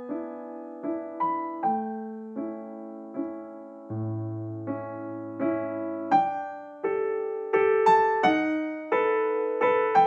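Background piano music: a slow, gentle melody of single struck notes and chords, each note fading after it is played, with a held low bass note near the middle.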